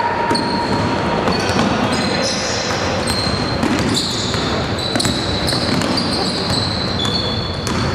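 Basketball game on a hardwood gym floor: sneakers squeaking in short high squeals again and again as players run and cut, over the thuds of a ball being dribbled and a background of voices.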